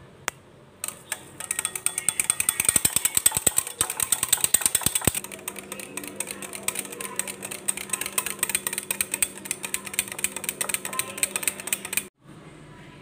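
Cream, curd and powdered sugar being whisked in a bowl: a fast, even run of clicks as the beater strikes the bowl, stopping suddenly near the end.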